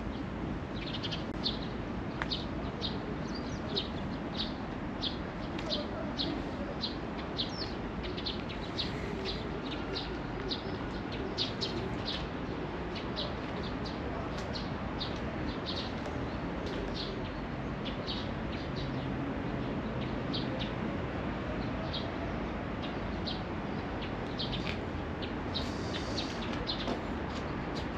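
Small birds chirping, short high calls repeated several times a second, over a steady low background rumble.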